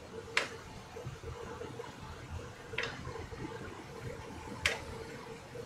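A pot of liquid bubbling on the stove, with three sharp clicks spaced about two seconds apart.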